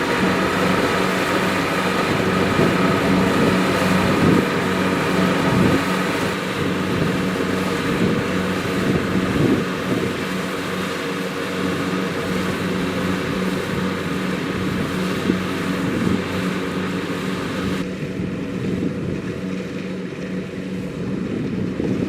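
Kubota DC-70 Plus combine harvester running steadily, its diesel engine and machinery giving a constant drone; the sound turns duller near the end.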